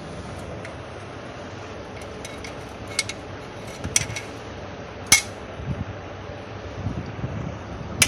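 A few sharp metallic clinks and taps of a tool working the oil-drain screw on the underside of a sewing machine, the loudest about five seconds in, with softer knocks between.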